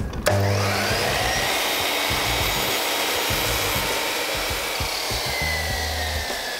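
Dnipro-M sliding miter saw switched on, its motor whining up to speed, then running steadily as the blade cuts a shallow, depth-limited groove into a wooden board. The pitch falls slowly over the second half.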